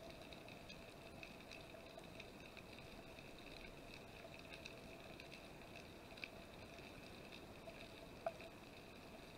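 Faint underwater ambience picked up by a camera in its housing: a steady faint hum made of a few fixed tones, with scattered small clicks and crackles. One sharper click comes near the end.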